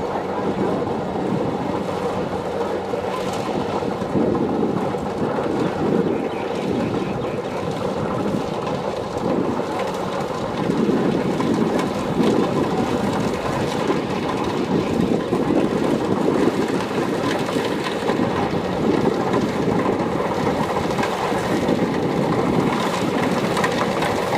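Kubota DC-70 Plus rice combine harvester running steadily while harvesting.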